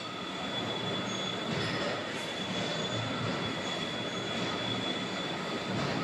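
Double-action hydraulic baler press running: a steady mechanical noise with a constant high whine over it.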